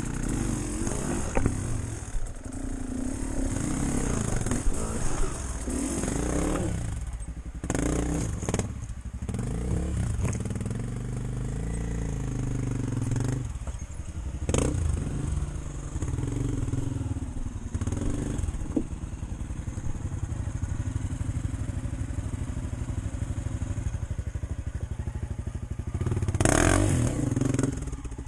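Off-road motorcycle engine running at low, shifting revs on a rough trail, with several sharp knocks and clatter from the bike over the ground; near the end the engine gets louder for a moment.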